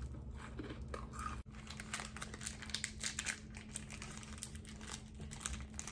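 Plastic candy wrapper being crinkled and peeled off a lollipop by hand: a run of quick, irregular crackles.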